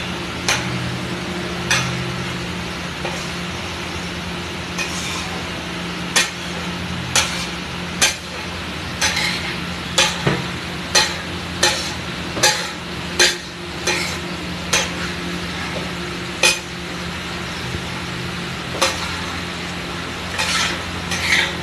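Metal spatula clacking and scraping against a large flat griddle (tawa) as pav bhaji is pushed and spread across it, in sharp strokes about once a second, closer together midway, over a steady low hum.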